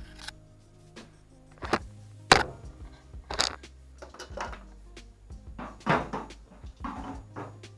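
Background music: a steady low bass with irregular sharp percussive hits.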